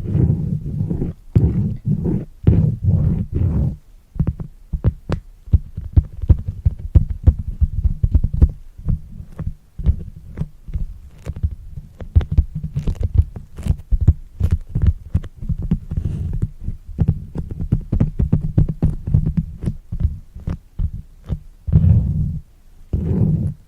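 Fingertips tapping fast on a soft trigger pad close to the microphone: dull thuds in quick runs with brief pauses, some sharper ticks among them.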